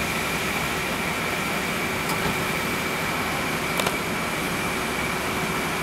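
Steady mechanical hum and hiss with a faint high whine held throughout, broken by two short clicks about two and four seconds in.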